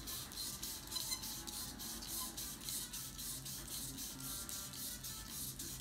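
600-grit sandpaper rubbed by hand against a newly installed pool cue tip as the shaft is worked back and forth: a rhythmic scratchy rasp at about four strokes a second.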